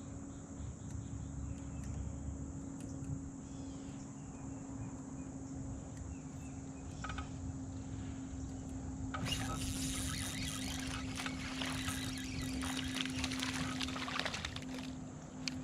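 Water splashing and trickling for about five seconds, starting around nine seconds in, over a steady low hum.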